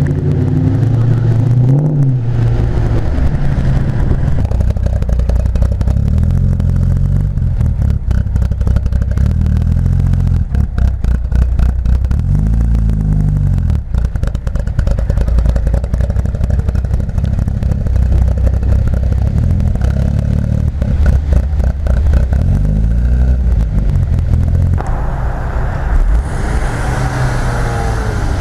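Car engines and exhausts revving and pulling away one after another, with several rises and falls in revs. Near the end a hiss of tyres on the wet road joins in as a car passes close.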